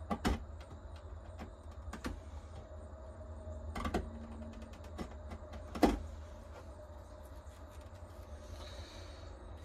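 A few sharp knocks and clicks, the loudest about six seconds in, over a steady low hum.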